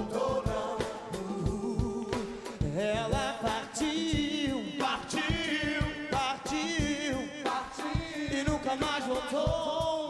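Live soul band playing with a steady beat of drums and percussion, bass and a singer's voice on top; the singing comes in about three seconds in.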